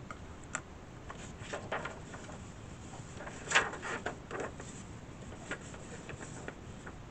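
Paper being handled and folded on a work surface: scattered soft rustles and light taps, the loudest about halfway through.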